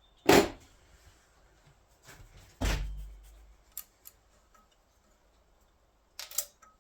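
Two sharp knocks, the first about a quarter second in and the second, with a dull thump, about two and a half seconds in, then a light click and a short rustle near the end: hand tools such as pliers being handled and set down.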